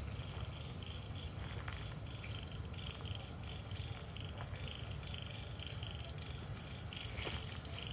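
Rhythmic high-pitched chirping, about three pulses a second, keeping up steadily over a low rumble.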